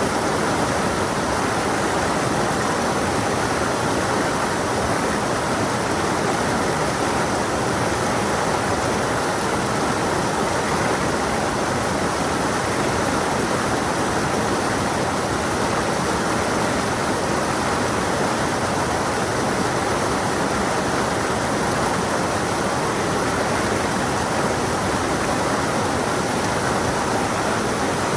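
Stream flowing, a steady rushing of water that holds even without change.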